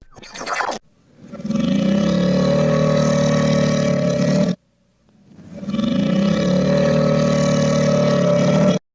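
Cartoon sound effect played backwards, twice over: each time a steady pitched sound swells up over about half a second, holds for about three seconds and cuts off suddenly. A brief, different effect comes just before, right at the start.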